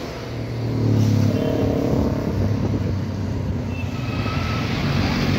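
Intercity coach's diesel engine running as the bus passes close by, a steady low drone that swells about a second in, over general traffic noise.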